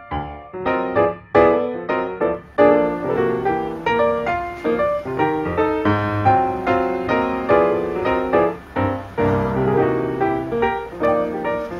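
Background piano music: a steady stream of quick struck notes.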